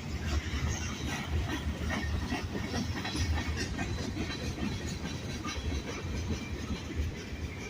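Freight train cars rolling past: a steady low rumble of wheels on rail, with irregular clanks and clicks from the wheels and couplers.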